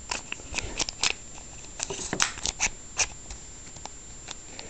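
Scattered clicks and light knocks from the parts of a Western Arms Kimber TLE airsoft pistol being handled during field-stripping, as the recoil spring is worked out of the slide.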